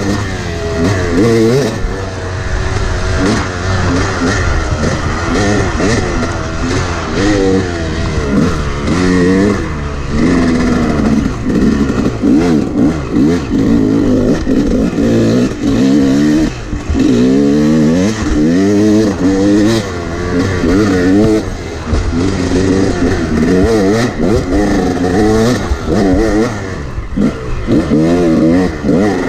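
A Yamaha 250 two-stroke dirt bike engine heard from on board while riding fast. The revs rise and fall again and again as the throttle is worked on and off through the trail's turns and whoops.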